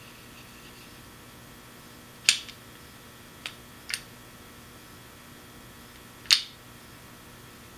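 Sharp clicks from handling a Shimano Curado 200 PG baitcasting reel: two loud ones a little over two and six seconds in, with two lighter ones between.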